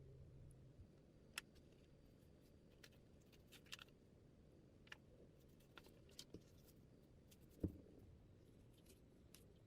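Near silence with faint, scattered small clicks and taps, and one dull thump about three quarters of the way through.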